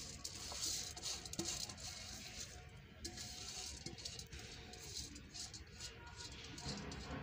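Faint patter and rustle of raw rice grains swept by hand off an aluminium tray into a pot of water, with small ticks as grains hit the rim and fingers rub over the metal.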